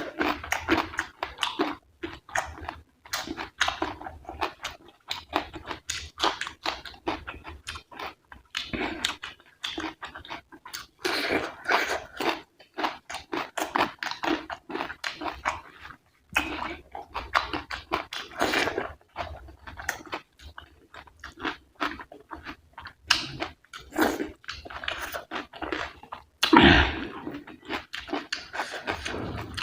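Close-miked chewing of rice and curry: wet mouth sounds and smacking in quick irregular clicks, with occasional crunches.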